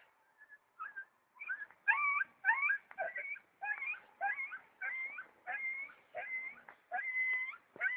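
A dog whimpering in a steady series of high, whining cries, about one and a half a second, the later cries longer and held on one pitch.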